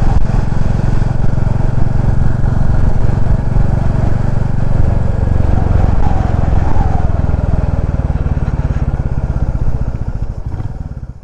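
Motorcycle engine running with wind and road noise, heard through a cheap lavalier mic inside a helmet. The sound dies away and cuts off near the end.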